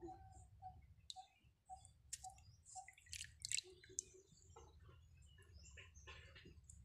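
Faint drips, small splashes and clicks of small prawns being handled and rinsed by hand in a steel bowl of water. A steady repeated note, about two a second, sounds in the background for the first three seconds.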